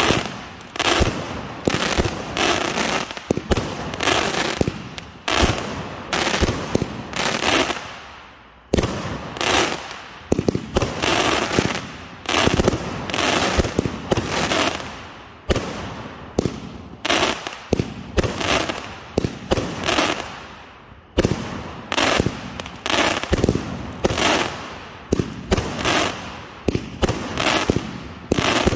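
A 100-shot consumer firework cake firing in quick succession: sharp reports, about one to two a second, each trailing off briefly, with two short lulls.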